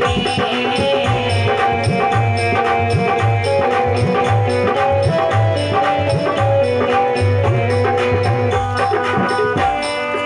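Instrumental devotional bhajan music: a hand drum keeps a steady beat under held melody notes, with a light high ticking in time.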